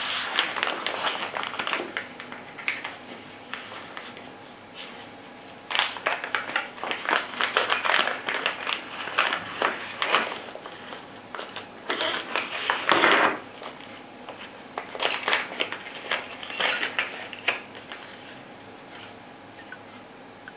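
Clear plastic zip-lock bags crinkling as they are handled and opened, in several bouts, with small metal hardware (screws, spacers, Allen keys) clinking together.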